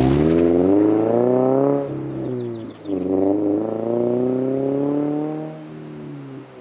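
2022 Subaru BRZ's flat-four engine accelerating hard, its pitch climbing, dropping at a gear change about two seconds in, then climbing again through the next gear before easing off near the end.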